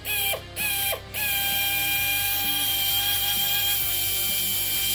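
Pneumatic metal-cutting shears with their air motor and freshly reassembled planetary gearbox running: two short bursts that spin down in pitch, then running steadily with an even whine from about a second in. The gearbox, just greased with Litol, works but is insanely noisy.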